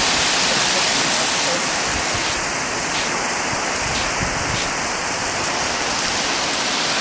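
Torrential downpour: very heavy rain falling steadily as a dense, even hiss.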